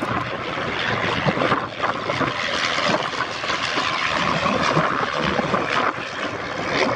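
Aircraft engine noise from a plane flying at an air display: a steady, dense rushing sound with no clear rise or fall.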